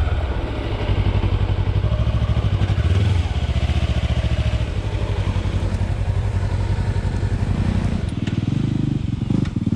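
Kawasaki Versys-X 300 motorcycle's parallel-twin engine running steadily under load as the bike climbs a steep rocky trail, a little quieter near the end.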